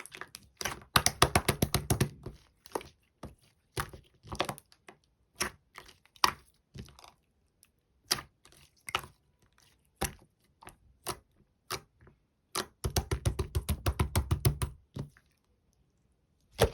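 Clear slime being pressed and stretched by hand, giving sharp clicks and pops. There are two runs of rapid clicking, one about a second in and one near the end.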